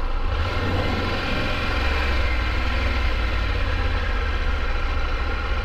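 Triumph Tiger 1200's three-cylinder engine running steadily, likely at idle. Its idle sits a little high after the throttle body cleaning, which the mechanic puts down to the ECM still relearning.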